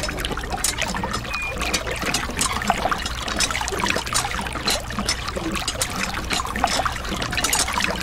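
Water trickling and splashing in a steady run of small irregular splashes, over a low steady hum.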